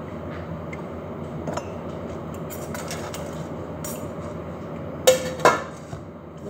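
Wire whisk making light scattered clicks against a mixing bowl of cake batter over a steady background hum, then two loud metal clanks about half a second apart near the end as a round metal cake pan is knocked while being picked up.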